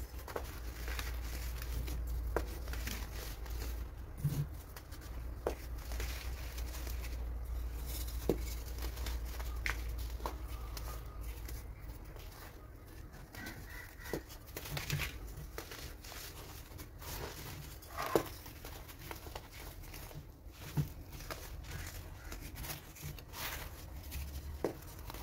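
Hands crushing and crumbling pressed baking soda chunks into loose powder: scattered dry crunches and crackles, with one sharper crunch about two-thirds of the way through. A low steady hum sits underneath.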